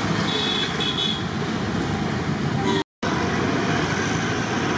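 Roadside traffic noise with two short high-pitched vehicle horn toots about half a second in. The sound cuts out briefly to silence near the three-second mark.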